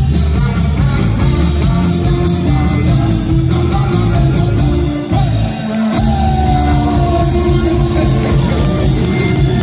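Live rock band playing, with acoustic guitar, electric bass and drum kit. The low end drops out for about a second about five seconds in, then the full band comes back in.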